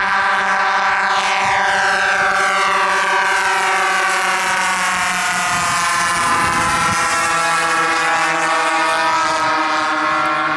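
Radio-controlled model B-17 bomber's four motors and propellers, a steady multi-toned whine as it flies a low pass overhead. The pitch drops about one to three seconds in as it goes by.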